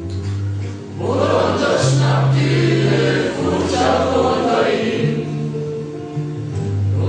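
A group of young men and women singing together over an instrumental accompaniment with held bass notes. The voices come in about a second in.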